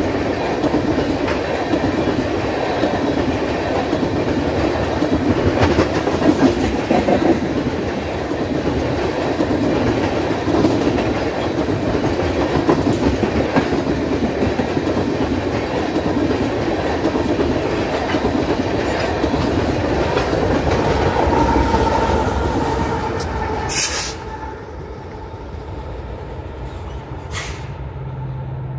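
Empty railroad tank cars of a freight train rolling past, a steady rumble and clatter of steel wheels on the rails. The sound falls off about 24 seconds in.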